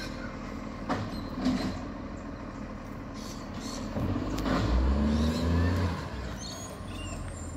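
Recycling garbage truck's diesel engine running, rising in pitch and getting louder for a couple of seconds about halfway through, with a few sharp knocks. Birds chirp near the end.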